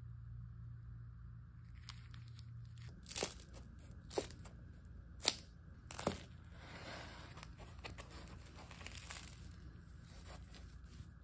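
A hand tears slices of pizza apart, and the crisp, charred crust crackles as it breaks. Four sharp crunches come between about three and six seconds in, followed by softer crackling.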